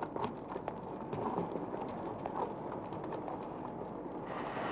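Uneven clattering knocks on a cobbled street, a clip-clop.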